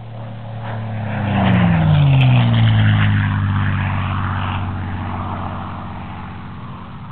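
Propeller aircraft flying past. The engine note swells, peaks about two seconds in and drops in pitch as it passes, then slowly fades.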